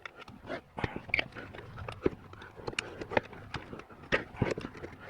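Irregular clicks and knocks of metal and plastic parts being worked and handled as stuck fuel injectors are twisted out of a TPI fuel rail.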